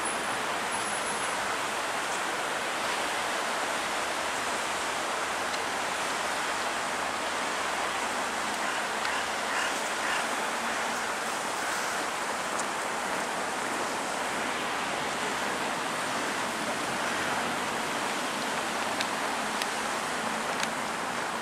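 Steady, even hiss of wind in a snowfall, with a few faint ticks near the end.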